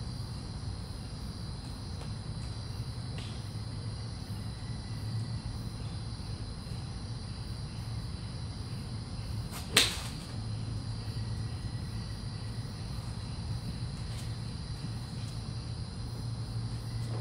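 A single sharp crack of a golf club striking a ball off a driving-range mat, about ten seconds in. A steady low hum and a steady high drone run underneath, with a couple of much fainter clicks now and then.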